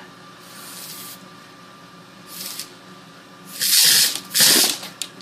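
Short blasts of compressed air hissing from an air compressor through a homemade Advil-bottle-and-pen airsoft gun, fed at about 40 psi. Four bursts: two faint ones, then two loud ones about a second apart near the end.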